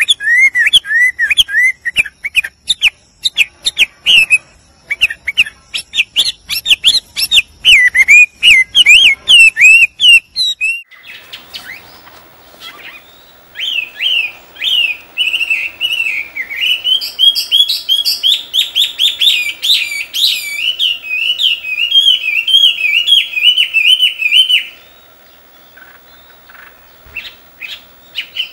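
Chinese hwamei (melodious laughingthrush) singing: long, loud runs of rapid, wavering whistled notes. The song breaks off for a couple of seconds near the middle, resumes, and near the end thins to a few scattered notes.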